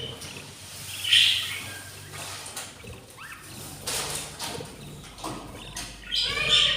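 Budgies calling at the nest: a short, harsh chirp about a second in and another burst of calls near the end, with light clicks and scratching in between.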